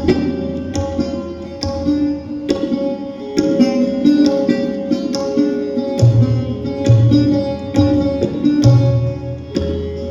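Hindustani classical music: a plucked string instrument of the sitar family playing quick, ringing phrases over a steady drone, with tabla accompaniment. Deep bass-drum strokes come every second or so in the second half.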